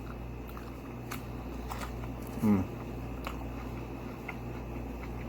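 Soft, wet chewing and small mouth clicks while eating a baked apple slice sandwich with whipped cream. Partway through comes a short low voiced "mm" that falls in pitch.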